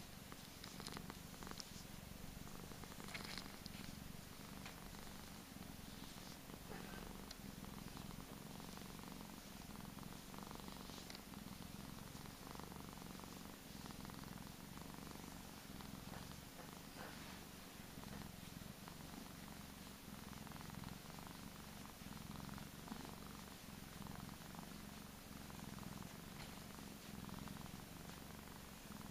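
Persian cat purring steadily while being stroked, a low continuous rumble.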